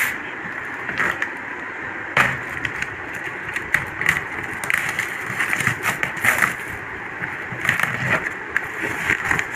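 Corrugated cardboard box being slit with a blade and torn open by hand: irregular scraping, ripping and rustling of cardboard and packing tape.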